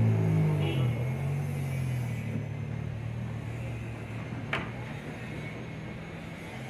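A car engine running with a low, even hum that fades over the first couple of seconds into a steady rumble, with a single sharp click about four and a half seconds in.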